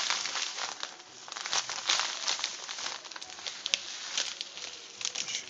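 Plastic bag of panko breadcrumbs crinkling as it is tipped and shaken, with the crumbs pattering out into a stainless steel tray: a continuous crackly rustle.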